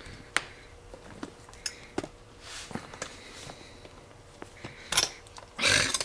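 A broken chisel levering at the spring retaining ring in a disc-detainer padlock's plug: scattered small metal clicks and a short scrape as the tip works against the ring, then a louder rustling clatter near the end as the padlock is shifted in the hand.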